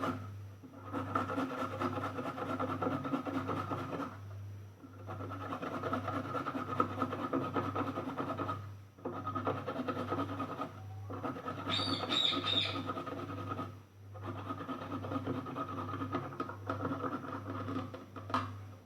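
Carrots being grated by hand on a metal grater: continuous rasping strokes in long runs, broken by a few short pauses.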